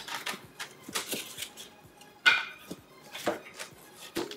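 Cardboard box being opened by hand: flaps rustling and scraping with scattered light taps, and one sharp, louder knock about two seconds in.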